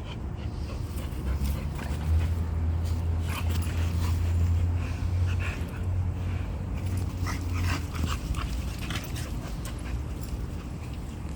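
Dog giving many short high-pitched calls in quick succession from about a second in, over a low steady hum.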